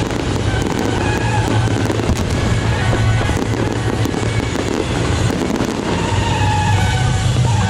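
Fireworks display crackling densely and continuously, with music playing loudly at the same time.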